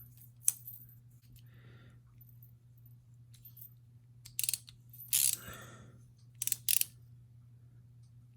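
A handful of short, sharp metallic clicks and snaps from handling a Finch 1929 frame-lock flipper knife, with a pair close together near the end.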